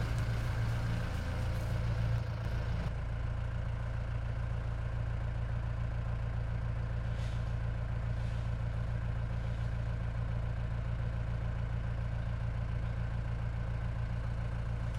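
Safari jeep's engine idling steadily, a low even hum.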